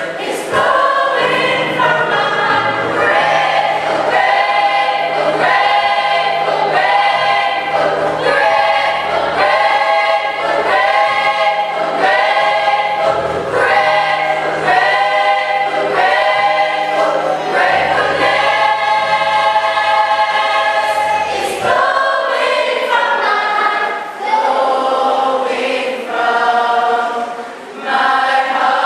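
Church choir singing a gospel hymn, with a low sustained accompaniment beneath the voices that drops out about three-quarters of the way through while the singing goes on.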